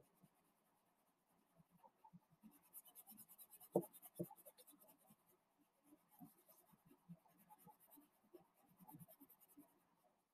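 Faint scratching of a gray crayon rubbed over paper to fill in an area with light colour, with two slightly louder ticks about four seconds in.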